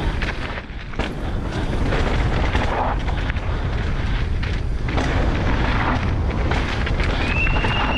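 Enduro motorcycle being ridden hard over a rough, rocky trail. The engine runs under heavy wind rumble on the helmet-mounted microphone, with scattered knocks from the bike over rocks. There is a short dip in level just before one second in.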